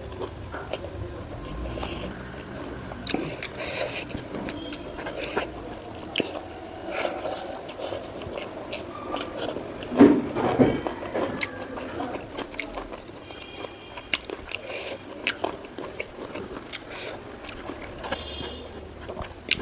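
Close-up eating sounds of a person chewing and biting food, with irregular wet clicks and crunches. The loudest bite comes about halfway through.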